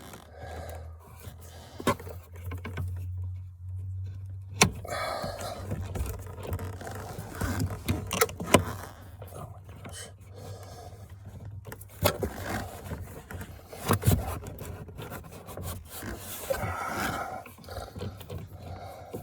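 Scraping and handling of parts, with several sharp clicks and knocks: a new parking-brake pedal gas strut being fitted, its ball-socket end clips pressed on by thumb. A low hum runs under the first few seconds.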